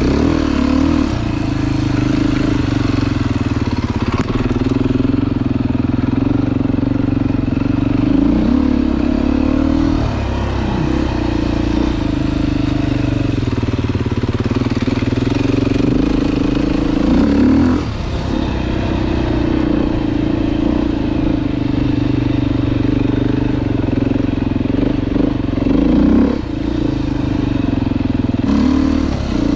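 Dirt bike engine running under way, its note dropping and then rising again a few times as the throttle is eased and reopened.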